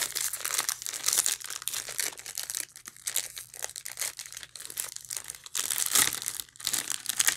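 Crinkly plastic wrapper of a Cadbury Wispa Biscuits pack being handled and pulled open by hand, with irregular crackling that is loudest about six seconds in.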